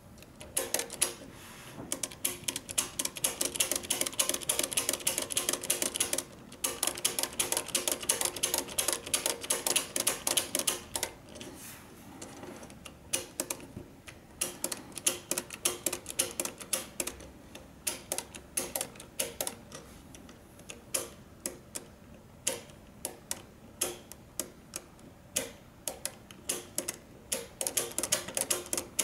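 Plastic LEGO Technic gears in a hand-built 90° shifter gearbox clicking and rattling as the input is turned by hand. The clicks come in fast runs, then slow to sparser ones, then speed up again near the end.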